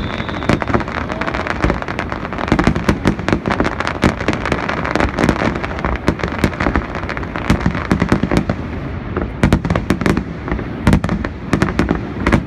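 Fireworks display: aerial shells bursting in quick succession, a dense run of sharp bangs and crackles over a continuous low rumble.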